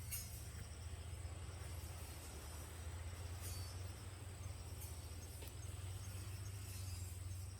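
Faint steady high-pitched chirring of crickets over a low hum, with a few sharp crackles of the wood fire.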